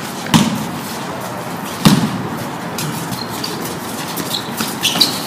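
Two loud thuds of a basketball striking hard, about a second and a half apart, over smaller scuffs and clicks from players' shoes on the court.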